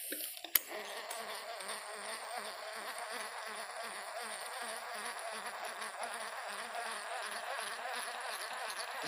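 Steady insect buzzing with a low pulsing about three times a second, and one sharp click about half a second in.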